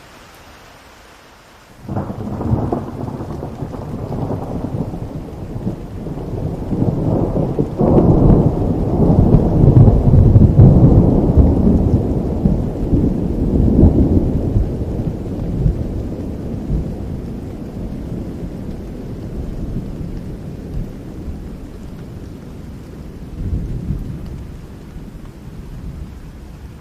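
A long thunderclap over rain: it breaks suddenly about two seconds in, grows to its loudest rumble a few seconds later, then rolls on and slowly fades, with a smaller swell near the end.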